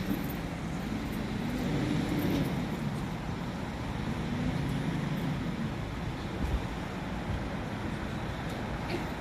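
Vehicle engines idling as a low hum that wavers up and down in pitch, with a brief low knock about six and a half seconds in.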